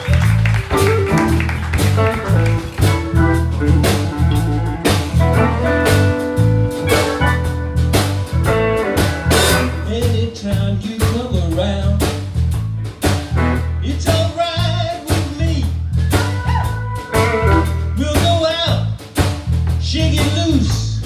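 A live band playing: electric guitar, electric bass, drum kit and electronic keyboard together, with regular drum hits running through.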